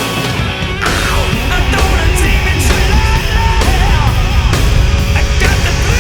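Loud, driving heavy rock music with distorted guitars and a heavy low end.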